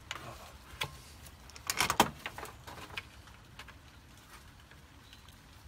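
Short clicks and knocks of ignition wires and plastic parts being handled and seated by gloved hands around the distributor, with a quick cluster of louder knocks about two seconds in.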